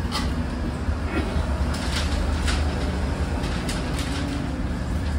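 Background sound of a small restaurant dining room: a steady low rumble with scattered light clicks and clatter.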